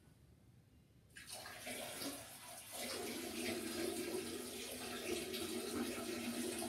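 Water running steadily from a tap, starting about a second in.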